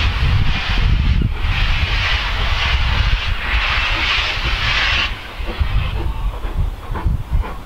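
BR Standard Class 4MT steam locomotive No. 75014, well off in the distance, giving a steady hiss of steam that cuts off suddenly about five seconds in. There is a low rumble in the first second or so.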